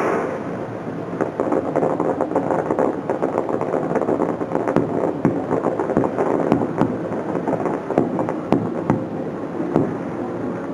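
Fireworks bursting overhead: a dense rumbling wash of explosions with many sharp crackling pops, thicker from about a second in.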